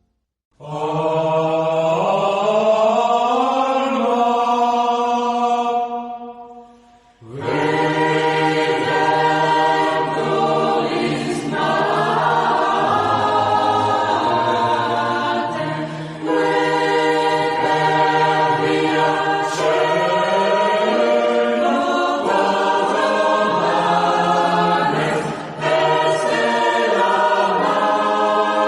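A choir singing a sacred piece in sustained, slowly moving chords. The singing stops briefly about six and a half seconds in, then starts again.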